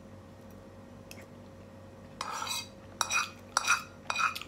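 Metal spoon scraping and clinking against a nonstick frying pan. It starts about halfway through with a short scrape, then a run of quick, ringing clinks.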